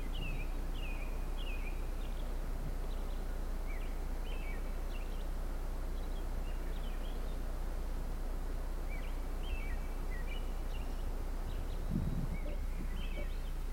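Small birds chirping in short runs of quick high notes, some groups falling in pitch, over steady low background noise; a brief low thump about twelve seconds in.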